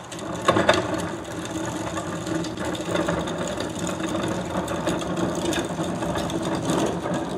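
Two empty plastic wheeled trash carts being rolled over pavement: two sharp clacks about half a second in as they are tipped onto their wheels, then a steady clattering rattle of the wheels and bodies over the rough surface.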